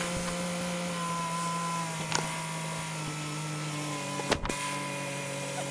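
Nissan Frontier 4.0 V6 idling steadily with the hood open, a steady hum that drops slightly in pitch about three seconds in. It is left running to warm up so the automatic transmission fluid level can be checked. A sharp click comes about two seconds in, and a louder knock just past four seconds.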